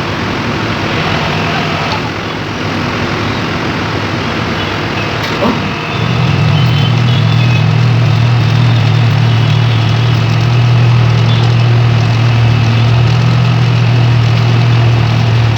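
Excavator-mounted hydraulic vibratory pile hammer (Vermeer VMT645) on a 35-tonne excavator: machine noise at first, then about six seconds in a loud, steady low hum starts and holds as the vibrator drives a steel sheet pile.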